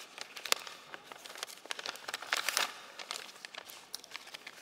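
Paper envelope being opened and the card inside handled right at a lectern microphone: crinkling and rustling paper with scattered clicks, and a louder stretch of crinkling about two and a half seconds in.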